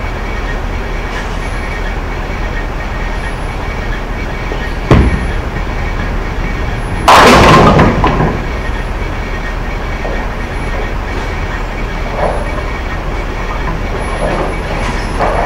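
A bowling ball thuds onto the lane about five seconds in, then about two seconds later comes a loud crash of pins as the ball hits them. A steady rumble of the alley's rolling balls and pinsetter machinery runs underneath.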